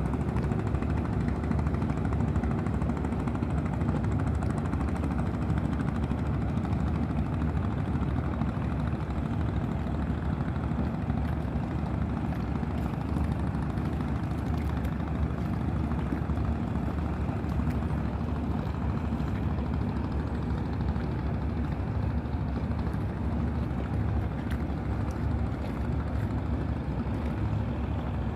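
A boat's engine running steadily, a continuous low drone.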